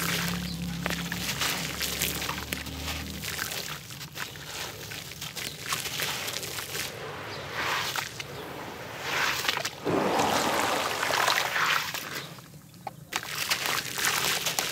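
Hands crumbling coarse, gritty blocks under water in a basin: sloshing and splashing with a dense stream of small gritty crackles, swelling loudest about ten seconds in.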